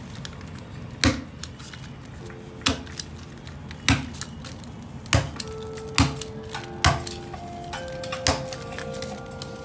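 Sharp clicks about once a second over background music, whose held notes come in a couple of seconds in and grow toward the end.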